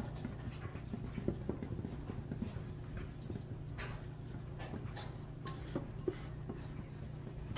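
A small green silicone-coated whisk stirring a thick honey mustard sauce in a glass bowl, with light, irregular clicks as the wires tap the glass, over a low steady hum.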